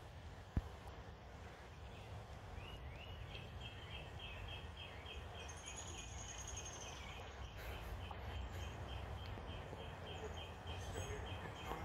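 Quiet creek-side woodland ambience: a steady series of short, high chirps, about three a second, starting a few seconds in, with a brief higher whistle midway, over a low rumble.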